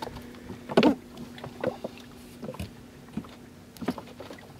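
Scattered knocks and rustles as a landed catfish is handled in a landing net to unhook it, the strongest about a second in, over a steady low hum.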